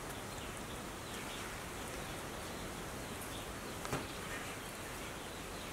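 Steady outdoor background noise with a faint insect buzz and light chirps, and one soft click about four seconds in.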